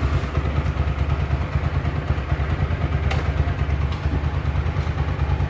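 Freshly rebuilt TVS Apache RTR 4V single-cylinder four-valve engine idling steadily, with two short clicks about three and four seconds in as the gears are shifted. The new camshaft, rocker arms, valves, piston and clutch are not yet run in, and the shifting is described as smooth.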